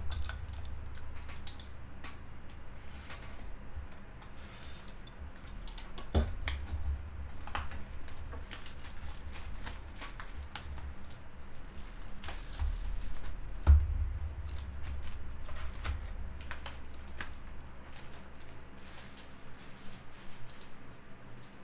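A cardboard trading-card hobby box being handled and opened by hand: crinkling, scraping and tapping, with louder handling thumps about 6 and 14 seconds in.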